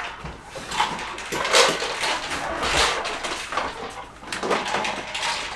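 Irregular scuffs, rustles and light knocks from foam play mats being handled and set down on the floor.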